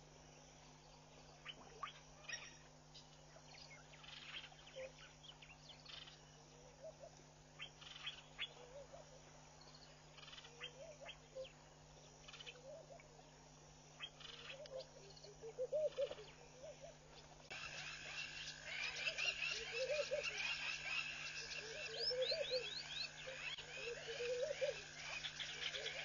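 Frogs croaking in short repeated calls every second or two, more often as it goes on, with scattered short high chirps. About two-thirds of the way through, a steady high tone and denser high chirping come in and everything gets louder.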